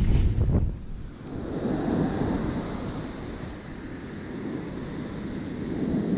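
Ocean surf breaking and washing up a sandy beach, a steady rushing wash that swells and eases. Wind buffets the microphone with a low rumble at the start, dropping away sharply in under a second.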